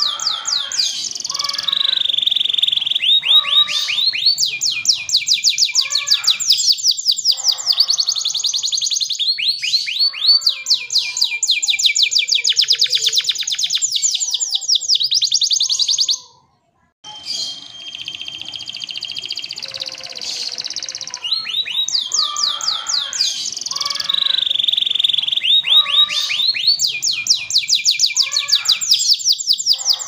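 Domestic canary singing a long, loud song of fast rolling trills and rapidly repeated high chirps. The song breaks off briefly a little past the middle, then carries on.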